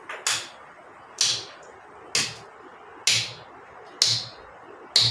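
Hand claps, six of them at an even pace of about one a second, keeping a steady beat: the equal gap between claps marks a regular rhythmic cycle (tala).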